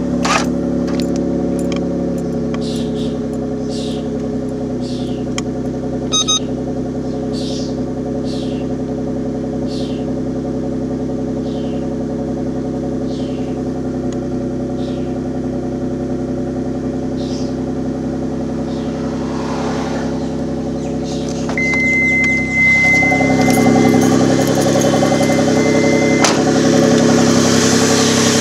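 Car engine running steadily just after a start, with a quick high chirp about once a second through the first half; the owner suspects a spun bearing. Later it gets louder, with a steady high whistle for a few seconds.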